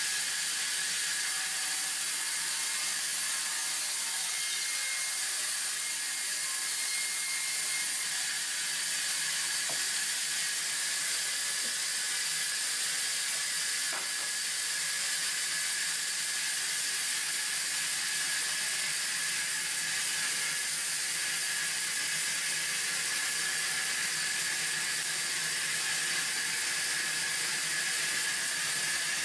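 Large band saw ripping a thick wooden plank: a steady, high-pitched cutting noise with a thin, constant whine running through it.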